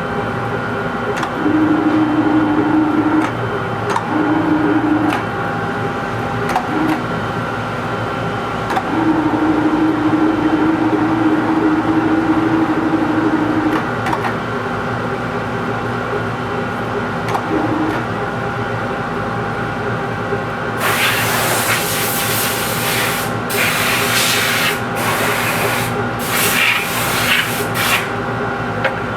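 Metal lathe running steadily while turning a large steel part, with a low humming tone that comes and goes in the first half. In the last third come several loud hissing bursts.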